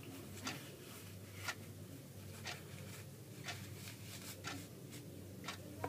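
Faint, evenly spaced ticks about once a second over a low steady hum, with a few softer irregular clicks of ribbon being handled and pulled tight into a knot.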